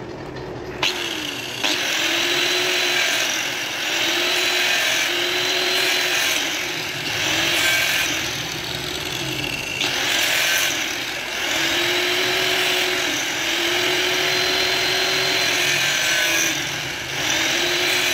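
Angle grinder grinding a knife's handle, starting about a second in. It works in repeated passes of a second or two, and the motor's pitch dips each time the disc bites into the work, then recovers.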